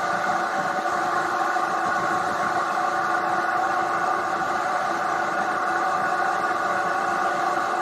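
Triumph Tiger 800 XRT's three-cylinder engine running at a steady speed under way, over a steady rush of wind and road hiss.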